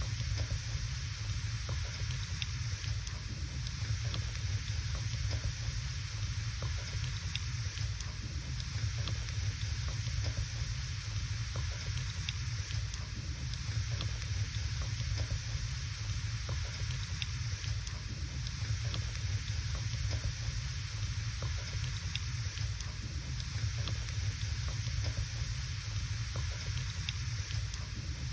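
Firewood burning in a fireplace: a steady hiss and low rumble with scattered small crackles and pops.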